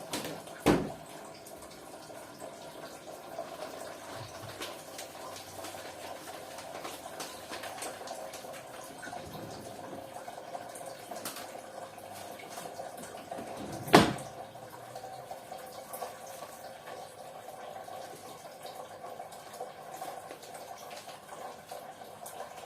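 DeLonghi coffee machine pouring water from its spout into a cup in a steady stream during a water-only run. Two sharp knocks, one under a second in and a louder one about fourteen seconds in.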